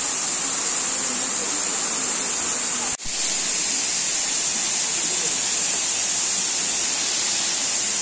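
Waterfall: a steady rush of water pouring down a cliff into a pool. The sound breaks off for an instant about three seconds in, where the recording cuts, then carries on as before.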